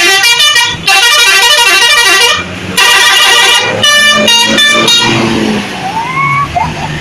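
Bus 'telolet' musical air horn playing quick multi-note tunes in four short bursts, several horn tones sounding together; it stops about five seconds in, leaving the bus's engine running.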